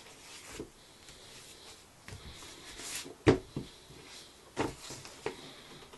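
Paper pages of a paperback book rustling as they are leafed through, then a sharp thump about three seconds in as the book is shut, followed by a few lighter knocks as it is handled on a wooden desk.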